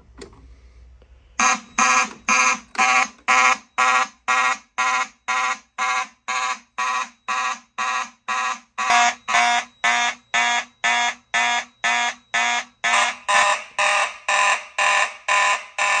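Mechanical fire alarm horns sounding together in a steady pulsing pattern, about two and a half blasts a second, starting about a second and a half in: the fire alarm system in alarm after a key-activated Simplex pull station.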